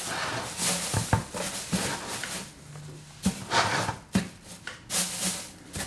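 Thin plastic trash bag rustling and crinkling in a series of short handling sounds as hands work it over the foam pool-noodle seat of a 5-gallon bucket toilet.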